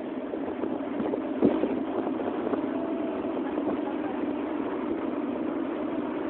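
Fire engine's motor running steadily as it drives along, heard from aboard, with a single thump about a second and a half in.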